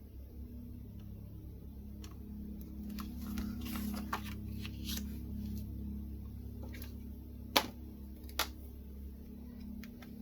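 Light handling of clear stamps and a stamp platform: scattered small taps and rustles, then two sharp clicks about a second apart near the end, over a steady low hum.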